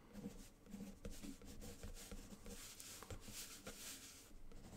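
Faint scratching of a pencil on paper in short, irregular strokes as lines and small marks are drawn.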